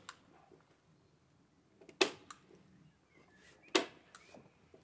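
Staple gun firing twice, a little under two seconds apart. Each shot is a sharp snap followed by a lighter click, as roofing underlayment membrane is stapled onto wooden roof boards.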